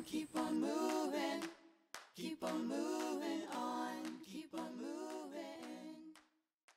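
A cappella vocal music: unaccompanied voices singing in two phrases, with a short break about two seconds in, ending about six seconds in.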